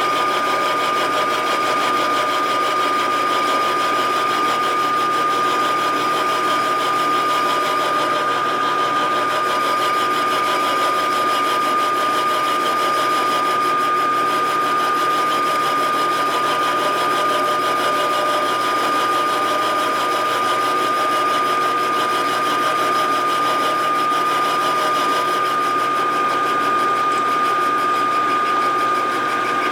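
Vertical milling machine cutting into the aluminium crankcase of a 1947 Harley-Davidson EL Knucklehead: a steady machining noise with a constant high-pitched whine.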